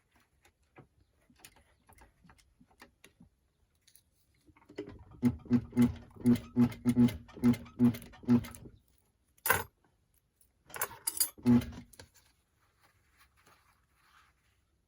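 Sewing machine stitching slowly, about three stitches a second, in a run of about four seconds and then a shorter run, with a sharp click between the two. Light clicks of fabric and machine being handled come before the stitching.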